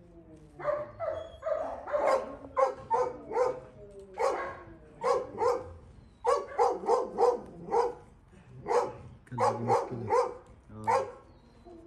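Dogs barking repeatedly, in quick runs of short barks with brief pauses between runs.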